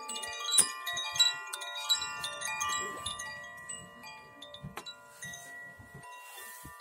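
Metal wind chimes ringing: a flurry of overlapping struck tones in the first few seconds, then fewer strikes as the long tones slowly die away.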